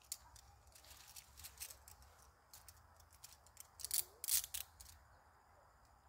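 Metal chain handcuffs clicking and rattling as the cuffs are handled and their ratchets worked: a run of short sharp metallic clicks, loudest and thickest about four seconds in.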